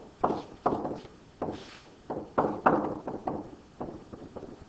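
Stylus tapping and scraping on a tablet screen while handwriting words, a dozen or so short irregular strokes.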